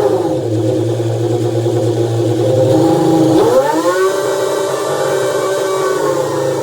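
Yamaha R1 inline-four motorcycle engine, just assembled, running. It holds a steady speed, then about three and a half seconds in the revs climb quickly and stay up.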